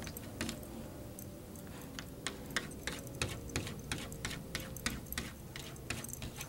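Opossum chewing dry cat food: a run of crisp crunching clicks, about three to four a second, with a gap of about a second early on.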